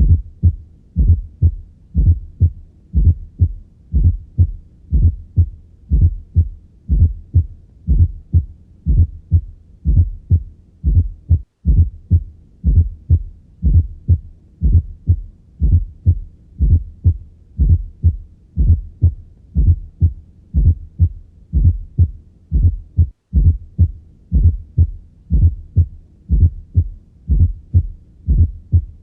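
A heart heard by auscultation: an evenly repeating run of short, low thumps. Each beat carries a fourth heart sound (S4), an extra sound at the very end of diastole, just before the first heart sound. It is caused by atrial contraction driving blood into the already filled ventricle. The sound drops out for an instant twice, about eleven and twenty-three seconds in.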